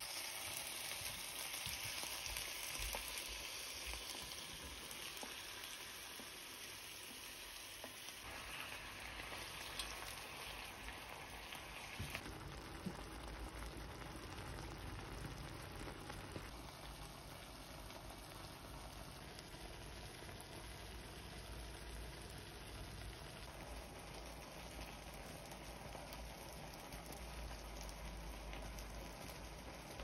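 Saucy marinated chicken, onion and carrot sizzling in a hot electric hot-plate pan, starting as the food is poured in and louder for the first few seconds, then a steady sizzle with a couple of small pops.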